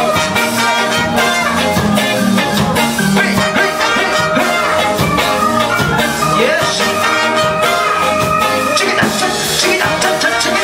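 A ska band playing live, its horn section of trumpets and trombone over drums and a rhythm section, at a steady loud level.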